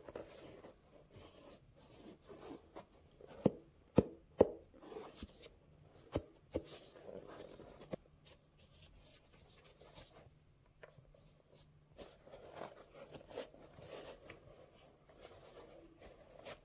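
Cotton-gloved hands handling a sneaker: glove fabric rustling and rubbing on the shoe's upper and laces, with a few sharp taps about three to four and a half seconds in and twice more around six seconds.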